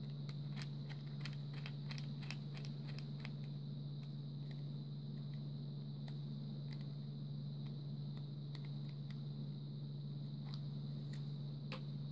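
Small Phillips screwdriver clicking in the screws of a plastic butane torch lighter: a quick run of light ticks in the first few seconds, then a few scattered ones. Under it runs a steady low hum with a faint high whine.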